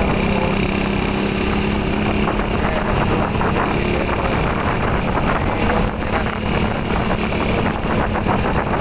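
Motorcycle engine running steadily while riding in third gear, a steady hum under broad wind and road noise.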